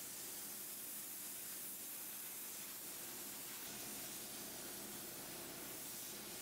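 Soda blaster's nozzle hissing steadily as compressed air and baking soda strip the finish from a wooden nightstand.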